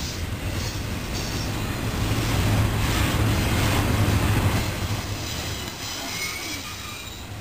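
Double-stack intermodal container cars rolling past: steel wheels rumbling on the rail, growing louder a couple of seconds in and easing off toward the end.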